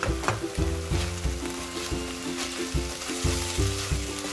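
Kimchi and soy sauce sizzling in a hot nonstick wok as a silicone spatula stirs and scrapes through it, the hiss swelling a little in the middle. Background music with a steady beat plays over it.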